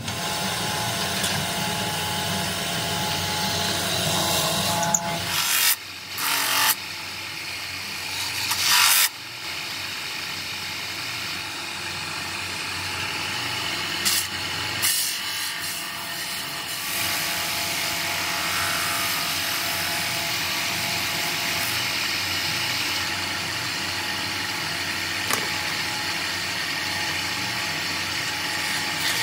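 Belt-driven wood lathe running steadily while a hand-held piece is pressed and rubbed against the spinning wooden lid, with a couple of loud scraping bursts about six and nine seconds in.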